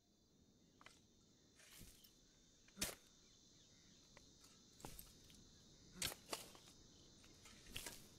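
Faint steady chirring of crickets, with sharp scraping strikes every second or so of a shovel digging into loose, stony earth.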